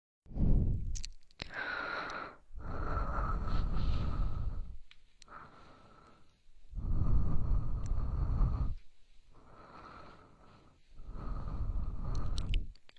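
ASMR breathing close to the microphone: slow breaths of about two seconds each, louder ones with a low rush of air on the mic alternating with softer, quieter ones.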